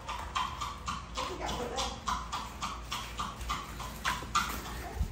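Wooden pestle pounding peanuts in a bowl: a steady run of short knocks, about three to four a second.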